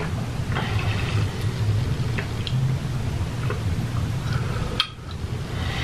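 Chewing pizza close to the microphone: small wet mouth clicks and crackles over a steady low hum, with one sharper click near the end.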